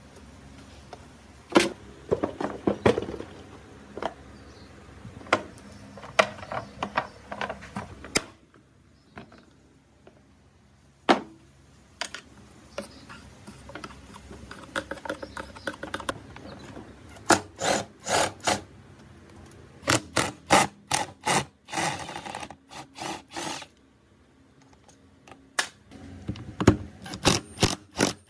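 Hand-tool work on a SOLO 423 power sprayer's parts: scattered clicks, knocks and light clatter of tools and small metal and plastic parts, with quick runs of rapid clicks about two-thirds of the way through and again near the end.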